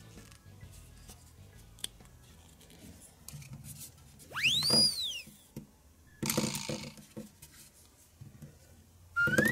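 Quiet background music with added sound effects: a whistle that rises and falls about four and a half seconds in, a short hissy burst about a second and a half later, and a rising whistle near the end.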